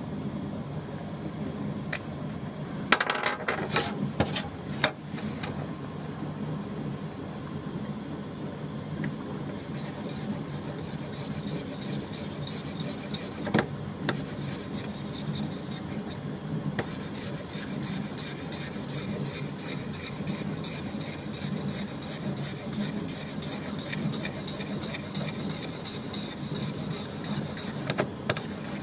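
A K8200 3D printer's motors hum while a sharp metal rod on its head scrapes permanent-marker ink off a copper-clad board with a rasping scratch. The scratching becomes denser and brighter about ten seconds in, with a few sharp clicks in the first few seconds.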